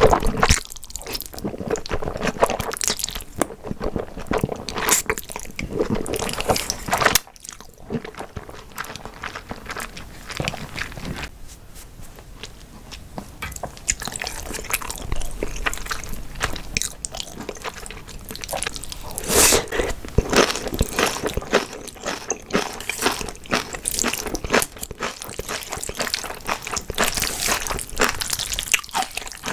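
Close-miked eating of jajangmyeon (Korean black bean noodles): the noodles being slurped in and chewed, with many short, sharp mouth sounds and a brief lull about seven seconds in.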